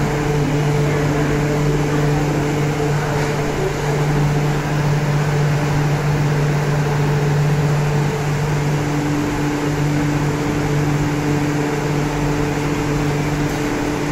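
Steady hum of a stopped MTR Q-train standing at the platform, its on-board equipment running: a low drone with a higher tone above it that drops out for a few seconds and comes back.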